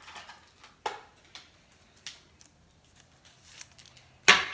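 Light clicks and taps of a hard plastic card holder being handled, then two sharp knocks about half a second apart near the end as it is set into a clear acrylic display stand on a marble countertop.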